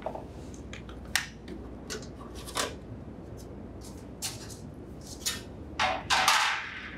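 Scattered light clicks, taps and short scraping rattles as the refrigerator's rear bottom access panel and its loose screws are handled and pulled away. The longest and loudest scrapes come near the end.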